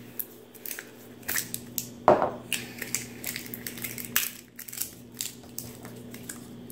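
Screw cap being twisted off a small cobalt-blue glass jar: a run of irregular crackling clicks and snaps, with one louder knock about two seconds in.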